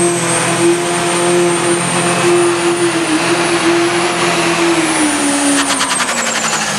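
Turbocharged diesel engine of a pro stock pulling tractor at full throttle, dragging the weight sled, with a high, steady turbo whine over the engine note. Near the end, both the engine note and the whine fall in pitch.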